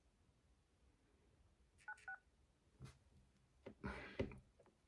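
Two short phone keypad tones (DTMF beeps) about two seconds in, as a phone number is dialled on a smartphone keypad. The rest is near silence, with a faint click and rustle near the end.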